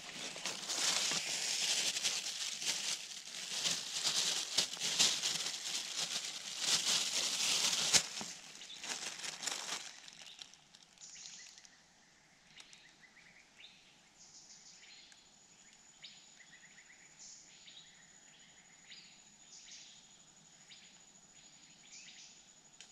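Close crackling and rustling of handling right at the microphone for about ten seconds, with many sharp clicks. Then a quieter forest background with faint high bird chirps over a thin steady high tone.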